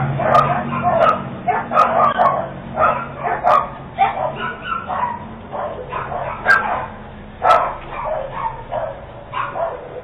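A dog barking repeatedly, short barks about two a second at an uneven pace, heard through a doorbell camera's narrow-band microphone.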